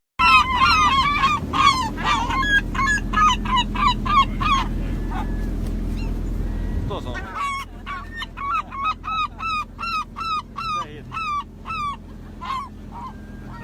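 Geese honking: repeated calls in quick runs of about two a second, with a break of about two seconds midway.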